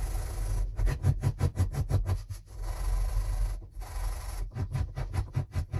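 A small round oak pad rubbed back and forth by hand on a sheet of sandpaper laid flat on a wooden bench, hand-sanding its rough face smooth. Quick, even strokes of about five a second, in two runs with a brief break a little over halfway.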